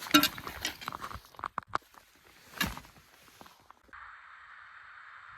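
Footsteps in snow from boots fitted with crampons: irregular crunching steps, the loudest at the start and near the middle. About four seconds in they stop abruptly and a steady hiss takes over.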